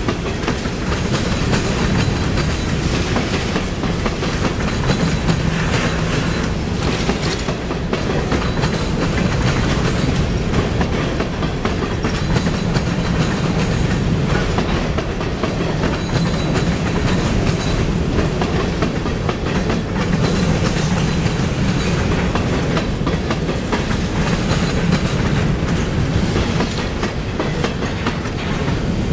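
Empty covered hopper cars of a freight grain train rolling past at a steady speed, their steel wheels running on the rails in a continuous, even noise.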